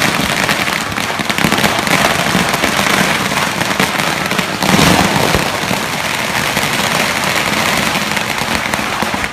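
A long string of Chinese firecrackers going off in a loud, rapid, unbroken crackle of bangs.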